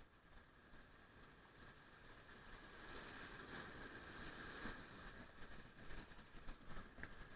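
Faint, steady wash of surf and wind that builds slowly after the first couple of seconds, with a few small ticks near the end.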